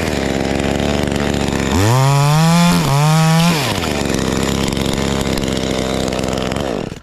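Knockoff Chinese 2511T-type top-handle two-stroke chainsaw idling, revved up for about two seconds with a brief dip midway, then dropping back to idle and cut off near the end.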